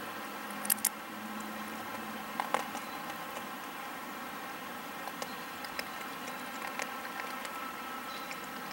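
A wild cottontail rabbit crunching a candy cane: a few sharp crunching clicks, the loudest pair under a second in and another pair about two and a half seconds in, with fainter ticks later, over a steady background hiss.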